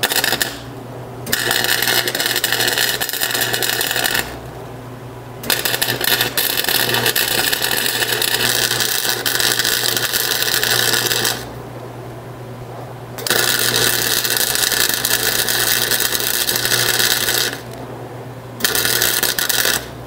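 Wire-feed (MIG) welder crackling as it lays a bead joining two steel sprockets, in five runs of about one to six seconds with short pauses between. A steady low hum runs underneath.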